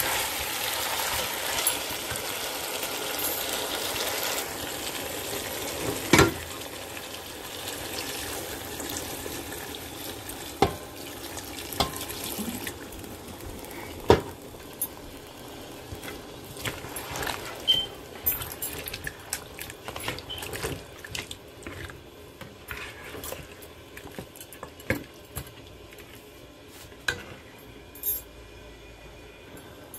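Metal spoon stirring chicken and potato curry in a pot, with scattered knocks and clinks of the spoon against the pot, the loudest about six and fourteen seconds in. Liquid just added to the hot pot hisses, louder at first and dying down over the first several seconds.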